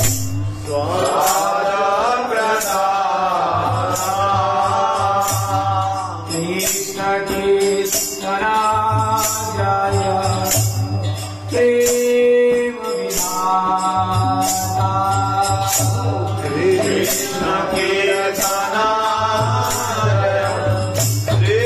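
A man singing a devotional kirtan chant in long melodic phrases, accompanied by a plucked ektara, a gourd-bodied single-string drone lute, with a short percussive strike about once a second.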